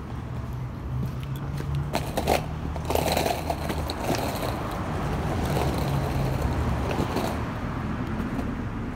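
Skateboard wheels rolling over a cracked concrete sidewalk: a steady rumble, with a few sharp clacks about two to three seconds in.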